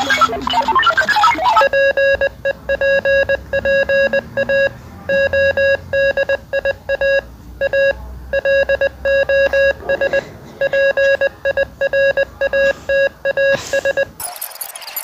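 Music gives way, nearly two seconds in, to an electronic beeping tone: one steady pitch pulsing rapidly in groups with short gaps, like a telephone ringer. It stops about a second before the end with a short burst of noise.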